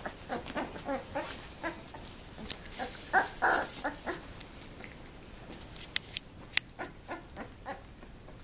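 A litter of two-week-old Labrador Retriever puppies making many short squeaks and whimpers as they crawl over each other, loudest a little after three seconds in. A few sharp clicks come around six seconds in.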